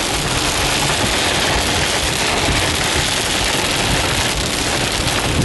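Heavy rain falling on a car's roof and windshield, heard from inside the cabin as a steady, dense hiss.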